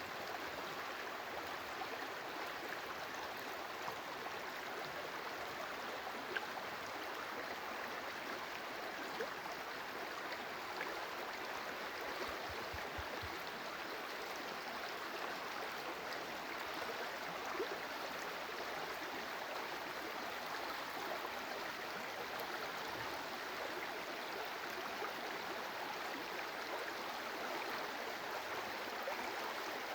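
Water running in a stream, a steady rushing with a few faint ticks here and there.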